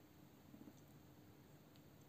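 Near silence: faint room tone with a steady low hum, broken by a soft bump about half a second in and two faint clicks later.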